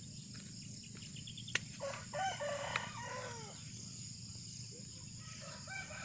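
A rooster crowing once, a crow of about a second and a half beginning about two seconds in, with rising and falling pitch. A sharp click comes just before it.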